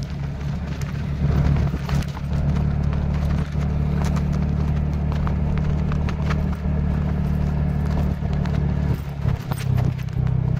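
Motorbike engine running steadily while riding, with wind rushing over the microphone and scattered sharp clicks.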